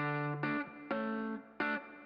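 Background music: plucked guitar notes with an effects-processed tone, struck in a steady rhythm about twice a second.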